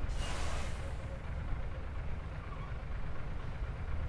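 Heavy diesel engine running steadily with a low rumble, with a short burst of hiss in the first second.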